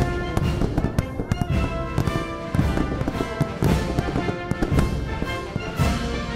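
Music with held tones, mixed with a dense run of fireworks bangs and crackling from a large salute display.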